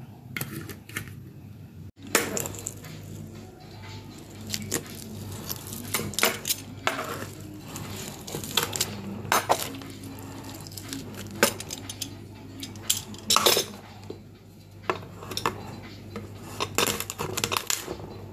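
Metal cutlery clinking and scraping against a metal baking tray of baked potato pizza, in many irregular sharp clinks starting about two seconds in, over a steady low hum.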